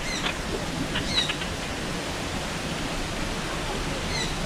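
Birds giving short, high, falling calls a few times: near the start, about a second in, and again near the end. Under them runs a steady rush of flowing water.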